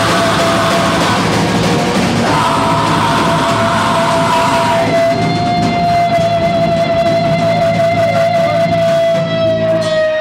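Live rock band playing loudly, with distorted guitar and drums; about halfway through, the music settles onto one long held note that rings to the end.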